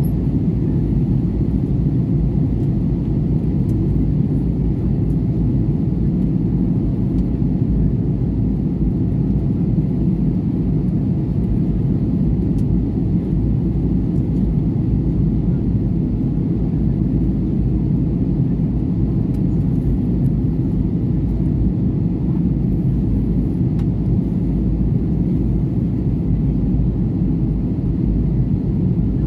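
Steady low rumble inside an Airbus A320-family airliner's cabin during descent: jet engine and airflow noise, even and unbroken.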